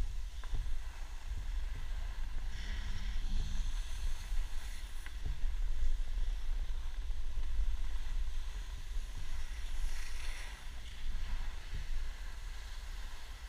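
Wind buffeting the microphone of a camera carried by a skier moving downhill, a steady rumble with uneven gusts. Skis hiss over packed snow, louder around two turns, about 3 seconds and 10 seconds in.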